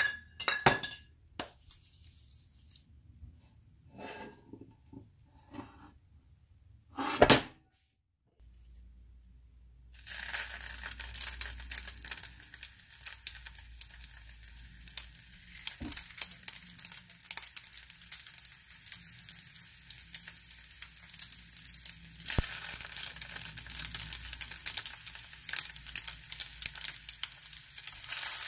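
A few clicks and knocks of kitchenware, then from about ten seconds in, oil starts sizzling and crackling in a stainless steel sauté pan as raw pork tsukune meatballs are set into it. The sizzle grows louder after about 22 seconds as more meatballs go in.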